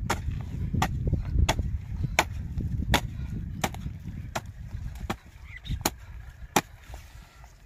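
Hand hoe chopping into dry, hard soil in a steady rhythm, about ten strikes one every three-quarters of a second. The later strikes are fainter.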